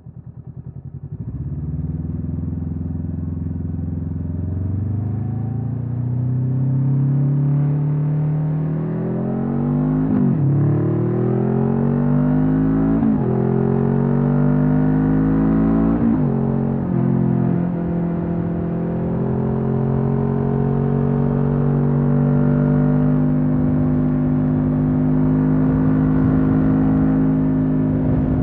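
Honda CB500F parallel-twin engine through a Mivv GP Pro stainless exhaust, accelerating through the gears. The pitch climbs and then drops sharply at three upshifts in quick succession, after which the engine holds a steady note at cruising speed.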